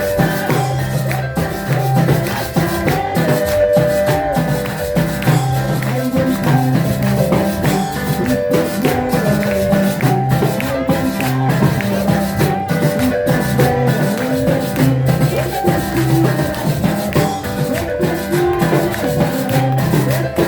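Music with a steady beat, a repeating bass line and percussion.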